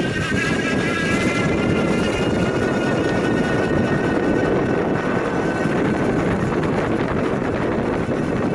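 Cyclone 250 W, 24 V bottom-bracket electric motor whining as it drives the recumbent trike's chain, over a steady rolling rumble of tyres on a gravel path. The whine shifts slightly in pitch and fades out about halfway through.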